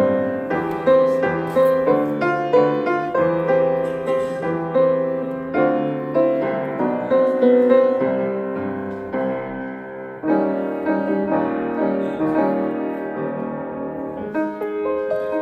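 Slow, gentle piano music, notes struck about twice a second and left to ring, with a fresh louder chord about ten seconds in.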